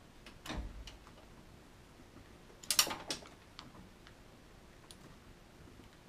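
Wire connectors being pulled off the terminals on the back of a Porsche 356 ignition switch: a few scattered small clicks and handling noises, with a soft thud about half a second in and the loudest cluster of clicks about three seconds in.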